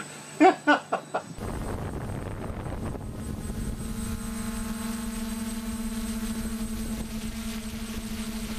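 A few short, loud pitched calls in the first second, then a quadcopter drone's propellers and motors humming steadily, as picked up by its own onboard camera in flight; the hum steadies in pitch about three seconds in.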